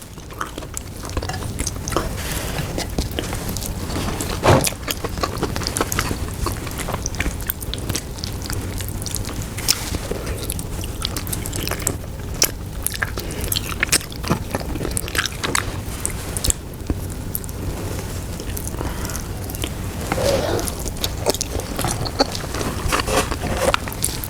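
Close-miked chewing and wet mouth smacks of someone eating soft, long-simmered pata tim (braised pork hock) with rice, a rapid irregular run of sharp clicks over a steady low hum.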